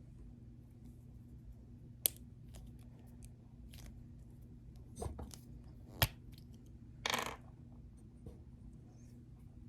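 Scattered small clicks and knocks of parts and tools being handled while working on an air pistol, with two sharper clicks and a short scraping rasp about seven seconds in.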